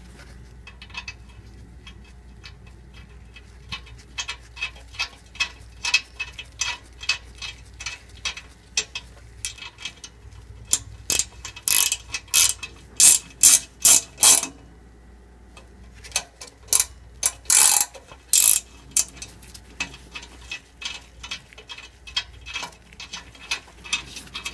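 Ratcheting wrench clicking in quick runs as it turns an M8x1.25 thread chaser in and out of a stud hole on an exhaust oxygen-sensor flange, cleaning the rusted threads. The clicks are loudest in two spells past the middle.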